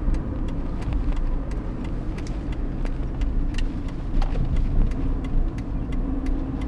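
Car interior during a left turn: steady low engine and road rumble, with the turn signal ticking about twice a second.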